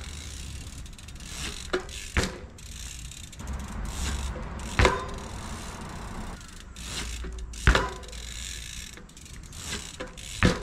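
27.5-inch mountain bike doing repeated bunny hops on asphalt: tyres rolling, with ticking from the rear hub's freewheel while it coasts. A sharp thud and clatter comes each time the wheels land, four loud ones about every two to three seconds, the loudest near the end.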